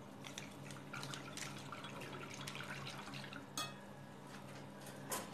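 Dry yeast being tipped from its packet into a glass bowl of milk and water: faint, soft ticking and light dripping, with two sharper clicks, one about three and a half seconds in and one near the end.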